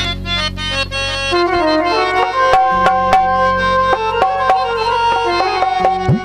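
Instrumental introduction of a Sindhi folk song: a melody of short stepping notes over a held low drone, with a few drum strokes.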